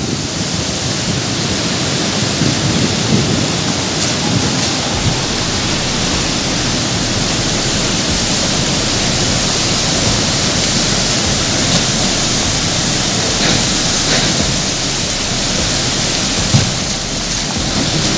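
Floodwater rushing steadily in a swollen river channel, a broad, even noise that doesn't let up.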